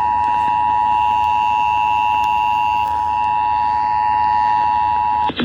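Emergency Alert System attention signal broadcast over FM radio: two steady tones sounding together (853 and 960 Hz), held unbroken, then cutting off abruptly just before the end as the voice announcement starts.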